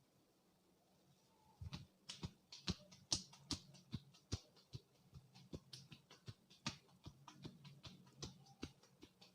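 Hands giving a head massage, making a quick series of sharp taps and slaps, irregular at about three or four a second, starting about a second and a half in.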